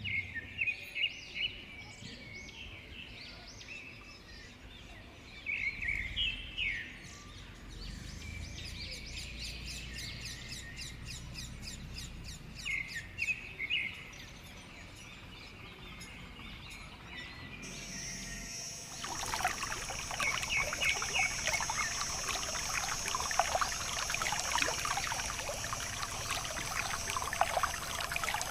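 Birds chirping in short bursts of quick calls, three times over a faint steady background. About two-thirds of the way through, a dense splashing, trickling water sound starts and keeps going.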